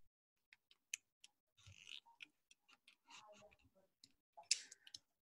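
Near silence: faint, scattered small clicks and a few soft, brief noises.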